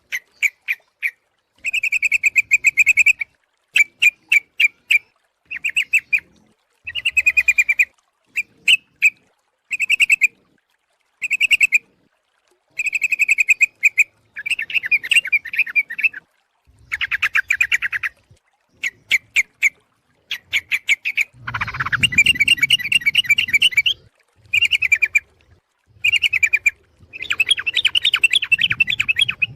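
Yellow-vented bulbul (trucuk) calling: short, bubbly chattering phrases repeated about every second or two with brief pauses between them. About two-thirds of the way through, the calls run together into a longer, denser stretch.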